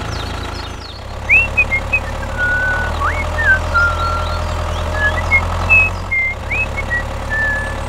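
Engine of a mini tractor running steadily, swelling about a second in, with short high chirps and whistles over it.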